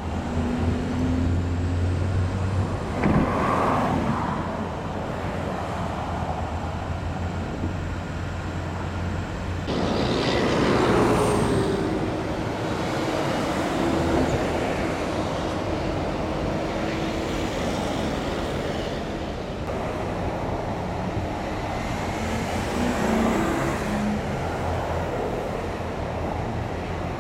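Freeway traffic noise: cars passing now and then, the loudest about three seconds in and again about ten seconds in, over a steady low engine hum.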